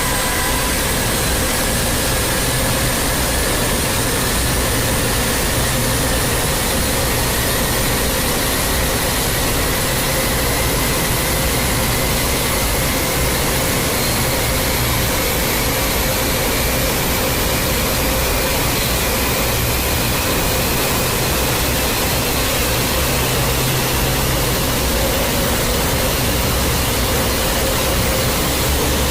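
A loud, steady hiss of noise with a few faint tones slowly rising in pitch.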